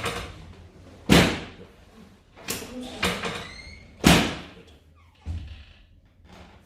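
Chiropractic drop table's padded section dropping under a thrust with loud slams, two big ones about a second in and about four seconds in, with smaller knocks between them.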